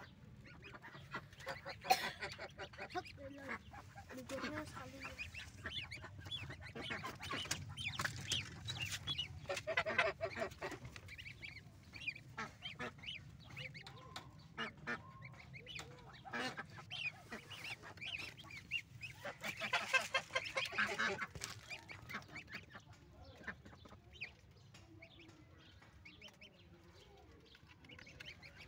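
Domestic goslings peeping in many short, high calls, mixed with the calls of their adult goose. The calls come in bunches, busiest about two, ten and twenty seconds in.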